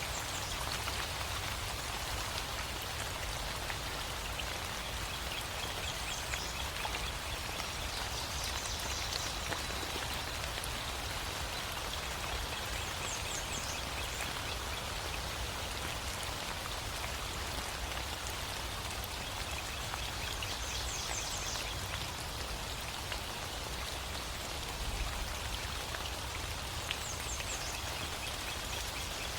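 Steady rain falling, the drops pattering on surfaces in an even, unbroken hiss, with a few short high chirps over it now and then.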